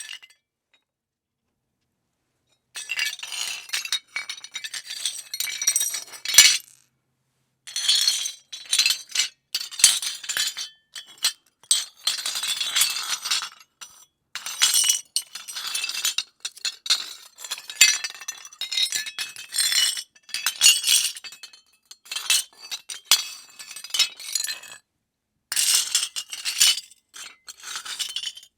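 Rubber breaking sound effect: repeated clusters of sharp, bright crackling and clinking, each a second or three long with short gaps between, starting about three seconds in.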